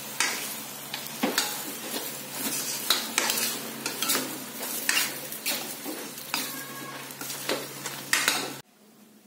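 Vermicelli noodles and vegetables sizzling in a stainless steel wok while a metal spatula stirs and tosses them, scraping and clanking against the pan about once a second. The sound cuts off suddenly near the end.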